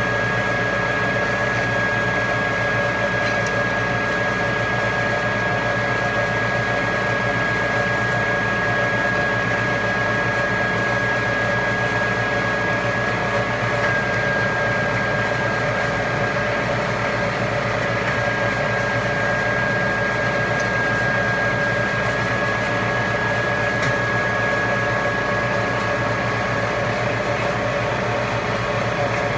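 Supermax YC-2VAS vertical milling machine running steadily, a constant motor hum under a high whine that shifts slightly in pitch a few times.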